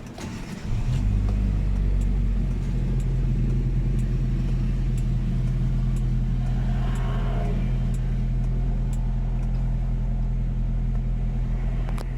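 Hyundai Getz engine starting: it catches under a second in and settles into a steady cold-engine idle. The idle air control valve and throttle position sensor have just been replaced.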